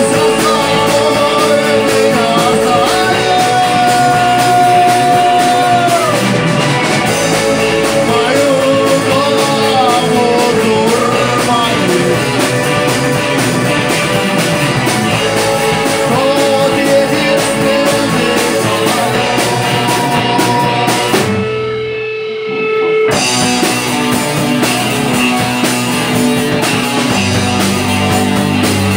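Live rock band playing: electric guitar and drum kit under a sung vocal line. About 21 seconds in, the band drops out for a couple of seconds, leaving one held note, then comes back in.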